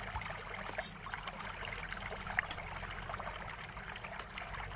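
Small clicks and taps of a glued-down laptop battery being gripped and pried against the chassis, with one sharper click about a second in. Underneath runs a steady crackly hiss and a low hum.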